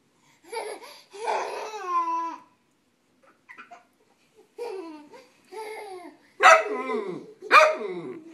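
A toddler's high squeals and babble mixed with a young dog's play barks during tug-of-war. Two sharp barks near the end are the loudest sounds.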